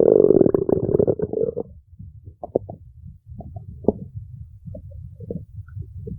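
A hungry stomach growling: a loud, long pitched growl that fades out about a second and a half in, then low rumbling with scattered small gurgling pops.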